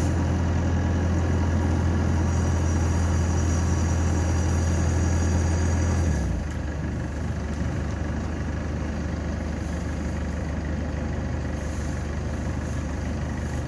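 Rice combine harvester's engine running steadily with a deep hum, easing down to a lower, quieter speed about six seconds in.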